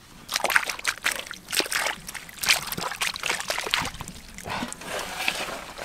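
Hands splashing and sloshing through shallow muddy water, feeling for catfish in the mud, in short irregular splashes.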